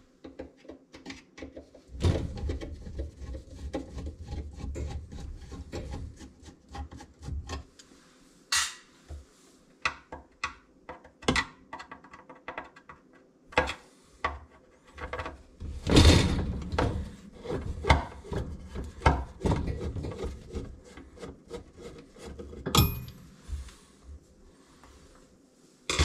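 Hand tool working the screws that fix a dishwasher's mounting brackets to the underside of the countertop: irregular scraping and rubbing with many small clicks and knocks, loudest for a few seconds about two seconds in and again around the middle.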